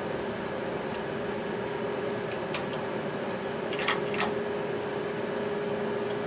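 A few light metallic clicks, a small one about two and a half seconds in and a short cluster around four seconds in, as the loosened picker is lifted off the embroidery machine's rotary hook assembly. A steady hum runs underneath.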